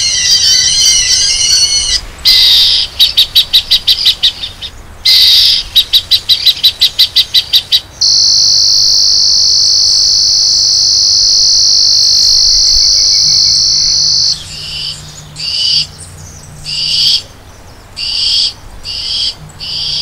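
Bird Gard electronic bird-repeller speakers playing their loud bird-scaring sound sequence. High warbling tones give way to two runs of rapid chirps, then one long steady high-pitched whine lasting about six seconds, then a string of short calls less than a second apart.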